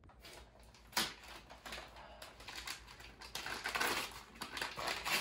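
Gift wrapping paper being torn and crumpled by hand as a present is unwrapped: irregular ripping and crinkling, with a sharp tear about a second in and busier tearing from about three seconds on.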